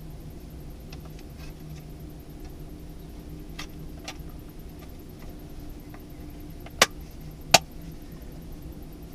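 A few sharp clicks or knocks over a steady low hum: faint ticks early on, two clicks in the middle, and two much louder ones about three-quarters of a second apart near the end.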